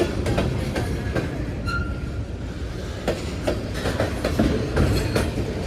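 Freight cars of a Union Pacific manifest train rolling past at close range: a steady rumble with wheels clicking and knocking over the rail joints, and a brief high wheel squeal about two seconds in.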